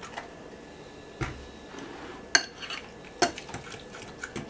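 Metal utensil stirring a thick cream cheese mixture in a glass bowl, with several sharp clinks of metal on glass, roughly one a second.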